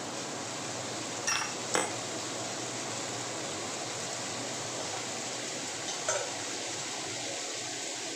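Shrimp and garlic chive flowers sizzling steadily as they stir-fry in a pan, with a spatula clinking against the pan twice about a second in and once more about six seconds in.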